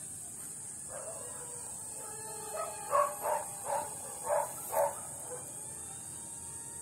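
A dog barking five or six times in quick succession, about three seconds in, over a steady high-pitched drone.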